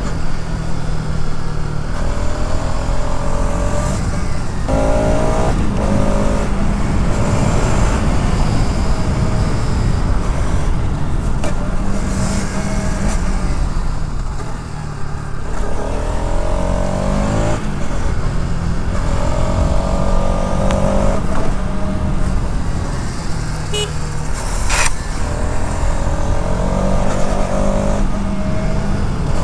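Bajaj Pulsar RS 200's single-cylinder engine and exhaust under hard riding. The revs climb and drop back again and again as it shifts through the gears.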